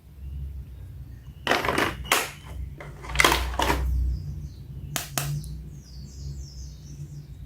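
Plastic toys being handled: a few short, sharp clicks, knocks and rustles at irregular intervals, over a low steady hum.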